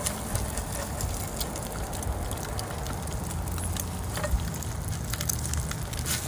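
Eggs and bread frying in a stainless steel skillet on a portable butane camp stove, sizzling steadily with scattered small pops and crackles, over a low rumble.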